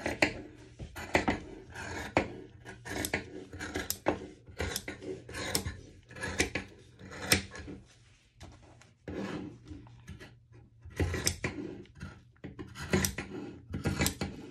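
Fabric being handled and smoothed on a work surface: a series of short, irregular rustles and scrapes, about one or two a second, with a brief lull past the middle.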